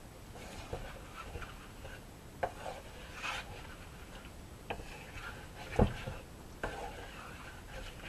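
A utensil stirring and scraping a vegetable and crocodile-meat stir-fry around a wok, with a few sharp knocks against the pan; the loudest knock comes about two-thirds of the way through.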